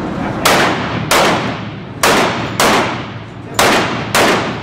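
Six pistol shots fired one at a time at an uneven pace, each with a sharp crack and a short echo off the walls of an indoor range.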